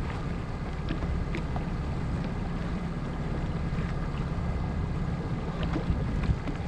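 Boat's outboard motor running steadily at trolling speed, with wind buffeting the microphone and a few light clicks.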